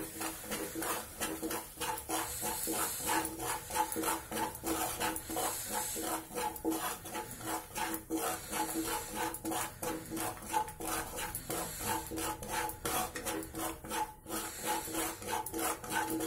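Wooden spatula scraping round a kadhai, stirring semolina and gram flour frying in ghee: a continuous run of quick, even rasping strokes.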